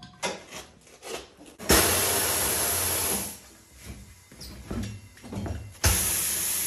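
Compressed air hissing in two sudden, steady bursts, about a second and a half long and then again near the end, with small metal clicks and knocks from hand work on the wheel between them.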